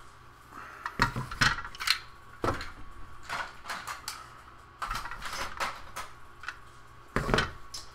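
Hard plastic toy pieces clattering and knocking together as they are moved and sorted by hand, in several spells of clicks about a second or two apart.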